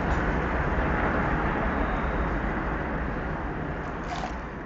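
Steady road traffic noise, a constant wash with a low rumble, slowly fading toward the end.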